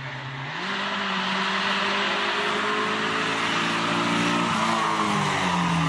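Hillclimb competition car's engine under power, growing louder as the car approaches. Its note steps up just over half a second in, sags slowly, then steps down again near the end.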